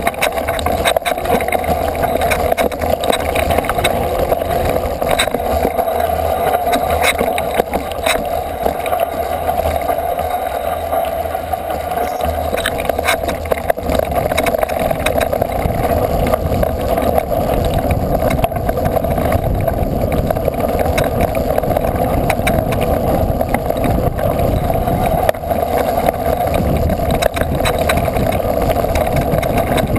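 Knobby-tyred off-road bike riding a rough, stony dirt trail: a steady drone with frequent knocks and rattles from the bumpy ground.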